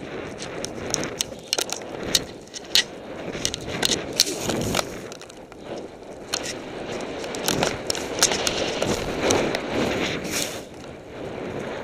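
Snowboard sliding and turning through fresh powder: the board's scraping hiss over the snow swells and fades with each turn, with many sharp clicks and rattles along the way.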